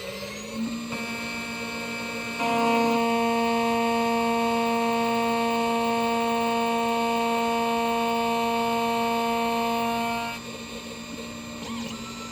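Xhorse Condor Dolphin XP-005 key cutting machine milling a blank key, its spindle motor running with a steady whine. It gets louder about two seconds in and drops back near the end.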